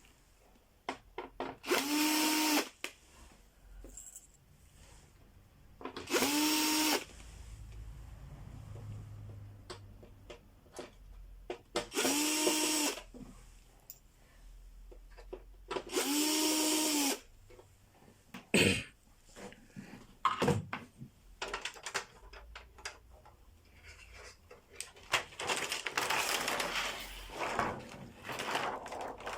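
Small electric screwdriver run in four short bursts of about a second each, its motor spinning up at the start of each one, while screws are backed out of a TV's backlight assembly. Between and after the bursts come clicks and knocks of parts being handled.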